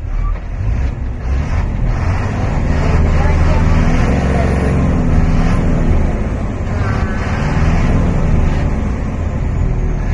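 A vehicle's engine running with a steady low rumble, with people's voices murmuring over it.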